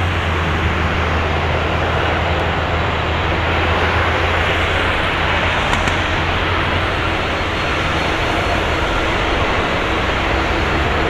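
Jet engine noise from a Boeing 777-200LR's GE90 turbofans on the landing rollout: a loud, steady rushing sound with a deep low rumble.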